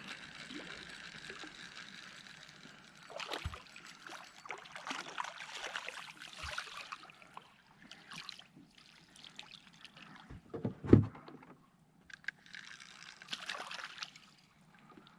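Water trickling and sloshing around a small fishing boat, with scattered light knocks and one louder thump about eleven seconds in.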